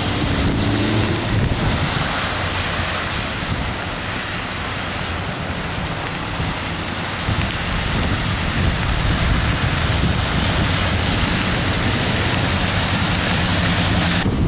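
Steady hiss of heavy rain with wind buffeting the microphone, and cars driving through standing floodwater, their tyres throwing up spray. The hiss grows brighter towards the end.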